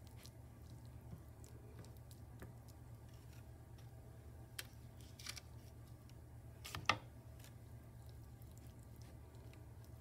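Faint crunching and squishing of a sticky birdseed mixture being packed by hand into a metal cookie cutter, with scattered soft clicks and a louder tap about seven seconds in, over a steady low hum.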